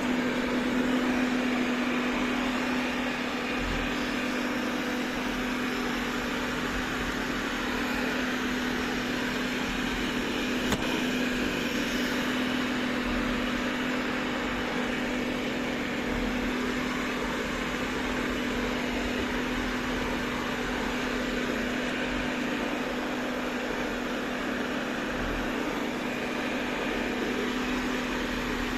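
Robot vacuum cleaner running steadily: an even motor hum under a constant rush of suction noise, with one brief click about eleven seconds in.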